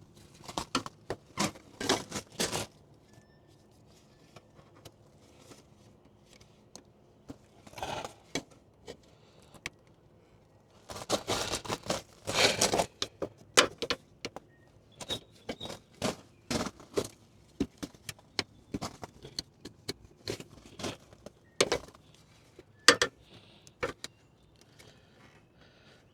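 Irregular clicks, rattles and scrapes in scattered clusters, the busiest run about halfway through, as hands wrestle a headlight bulb and its wiring connector to free them from the headlight housing.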